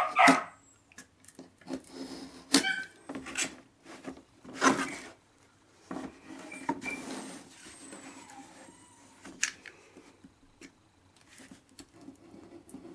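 Craft knife blade drawn through 3 mm rigid foam board: a series of irregular scraping strokes, the loudest right at the start, with others at about two and a half, five and nine and a half seconds in. Each cut runs twice along the same groove.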